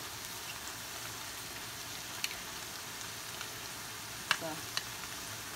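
Pasta and tomato sauce sizzling steadily in a stainless steel sauté pan, with a few sharp clicks of a metal spoon scraping tuna out of its tin.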